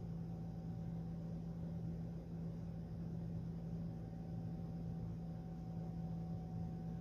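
Steady low hum with a faint higher whine over an even hiss: constant background room noise, such as an appliance or electrical hum.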